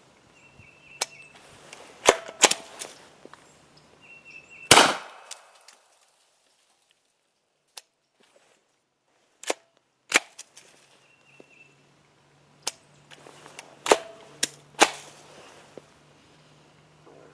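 Hi-Point .40 caliber carbine being worked through a string of misfires: sharp metallic clicks and clacks of the bolt being racked and the trigger dropping on rounds that don't go off, with one louder, sharper crack that rings on about five seconds in. The misfires come from over-long reloaded brass keeping the bolt from closing fully, as the shooter concludes.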